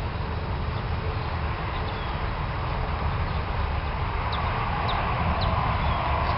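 Outdoor ambience: a steady low rumble with a faint hiss, and a few short high bird chirps in the second half.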